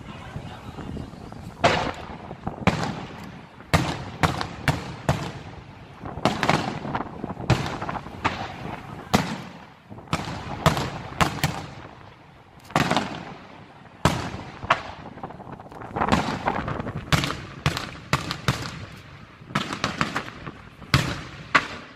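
Aerial firework shells from an Itria Fireworks display bursting in a long irregular series of dozens of sharp bangs. The bangs often come two or three in quick succession, each trailing an echo.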